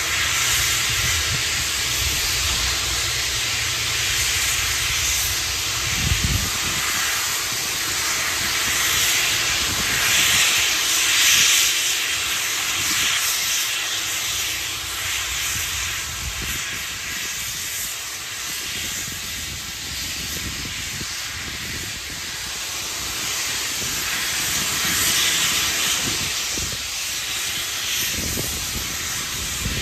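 Steam locomotive letting off steam: a loud, steady hiss that swells and eases, with a low rumble under it for the first few seconds.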